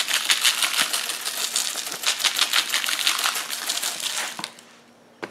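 Seasoning shaker of pink salt, black pepper and garlic shaken over raw meat on butcher paper: a fast, dense rattle of granules, stopping about four and a half seconds in.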